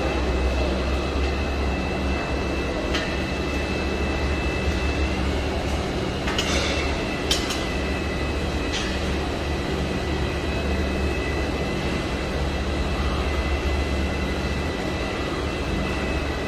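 Steady machinery drone with a strong low hum and thin, steady high whines, broken by a few short sharp knocks near the middle.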